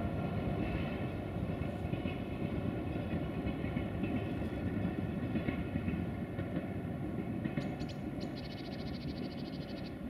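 A train rumbling past and slowly fading away, with a high, rapid ticking in the last two seconds.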